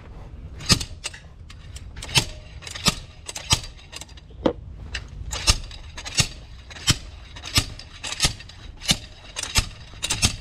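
Homemade slide hammer striking again and again, a sharp knock about every 0.7 seconds, working to pull a diesel injector seized in place by carbon build-up.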